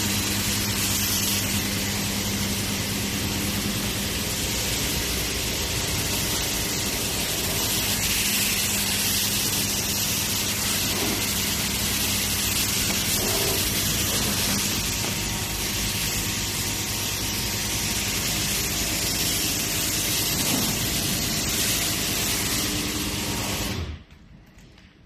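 High-pressure water spray from a self-service car wash machine, a steady hiss over the hum of its pump motor, cutting off suddenly near the end.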